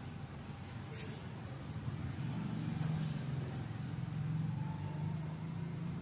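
Low, steady engine hum of a motor vehicle, swelling about two seconds in and easing off near the end, with a single sharp click about a second in.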